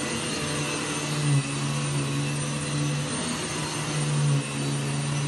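Vacuum cleaner motor running with a steady hum and airflow whoosh while being pushed back and forth, swelling briefly in level about a second and a half in and again near the end.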